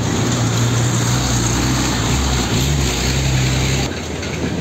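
Semi-trailer bulk-powder tanker truck passing close, its diesel engine droning low and steady over tyre and road noise. The sound cuts off abruptly near the end to quieter traffic.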